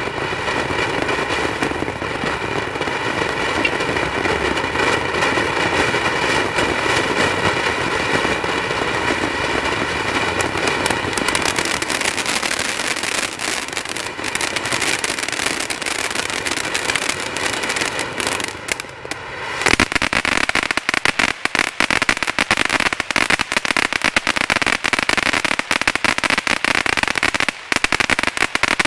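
Magnus Mystic Mind 200-gram firework fountain burning. A steady hissing spray gives way, after a short dip a little past halfway, to dense rapid crackling.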